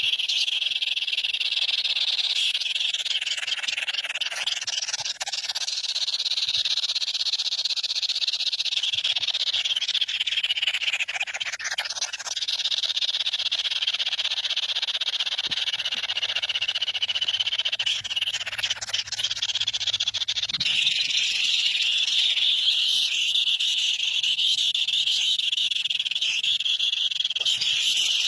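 A dense, steady chorus of shrill trilling animal calls, swelling and easing slightly but never stopping.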